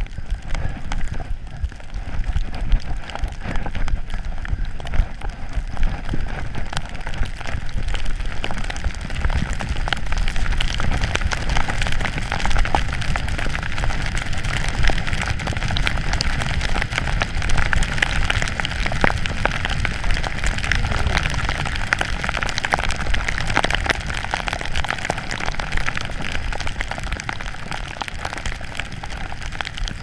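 Skis running through deep powder snow, a continuous hiss and crackle of spraying snow, with low wind rumble on the camera microphone.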